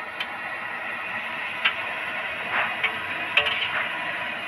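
Hot oil sizzling steadily as a batch of ring donuts deep-fries in a wok, with a few sharp taps of a wire spider skimmer against the pan and the donuts as they are turned.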